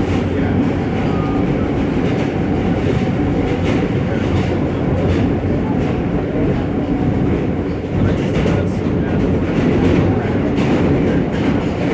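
New York City subway train running, a steady loud noise of the train and its wheels on the rails.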